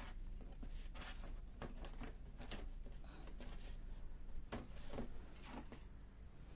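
Soft, scattered rustling and scratching noises, a dozen or so short strokes at uneven spacing, over a faint steady low hum.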